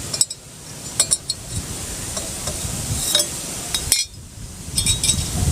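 Handling noise from a clip-on microphone: scraping and rustling with scattered sharp clicks and clinks, and two sudden dips in level.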